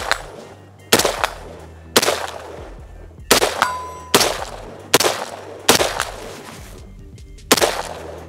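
AR-15 rifle firing semi-automatic, about seven aimed shots at roughly one a second with a longer pause before the last, each shot trailing a short echo. A brief ringing tone follows one shot about halfway through.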